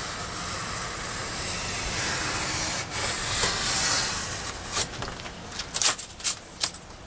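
Craft knife slicing through foam board: one long drawn cut, a steady scraping hiss lasting about four seconds, then several short quick scratchy strokes.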